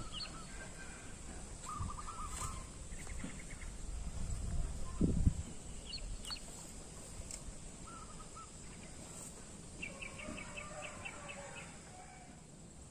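Birds calling in the background with short chirps and trills, including a quick run of repeated notes about ten seconds in. There is a low dull thump about five seconds in.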